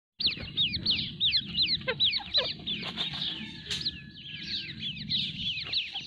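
Grey francolin (Dakhni teetar) chicks peeping: a rapid run of high, downward-slurred peeps from several chicks at once, with a few longer calls sliding steeply down about two seconds in.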